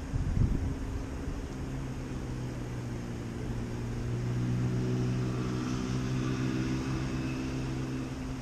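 A distant engine drone, a steady hum that grows louder toward the middle and then eases slightly, over a background hiss. A brief low thump about half a second in.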